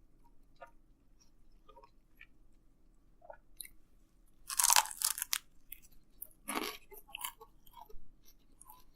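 Close-up eating sounds of a pizza sandwich: biting into it and chewing, with crunches of the crisp crust. The loudest crunch comes about halfway through, followed by a few smaller ones.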